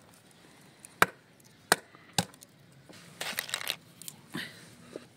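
Walnuts being cracked open on a wooden board: three sharp cracks about half a second apart, then a short patch of crunching shell and one more knock.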